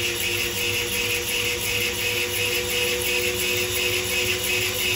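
CNC lathe running through a cut: a steady machine hum with a few held tones and a fast, even pulsing over the top.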